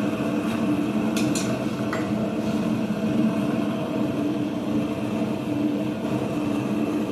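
Steady mechanical hum of a running forge, with a few light metal clinks between about one and two and a half seconds in.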